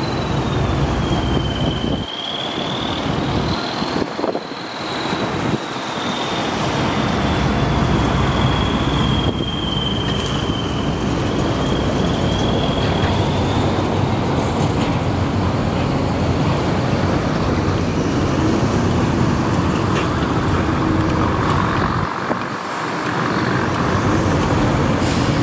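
Matador ME210LC-1 crawler excavator's diesel engine running under load as it digs and swings, with a high wavering whine over the first half or so, against road traffic.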